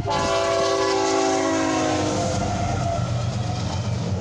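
BNSF freight locomotive's air horn sounding a chord that falls in pitch as the locomotive passes, fading out about two and a half seconds in. Under it, a heavy rumble from the locomotives and double-stack intermodal cars rolling over the rails carries on.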